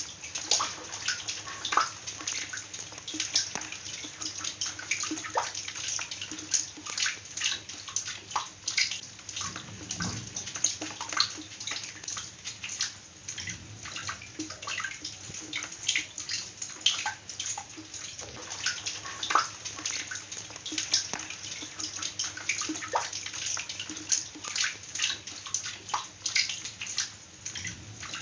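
Water splashing and dripping: a dense, irregular patter of small drops and plinks landing in water, with no steady rhythm.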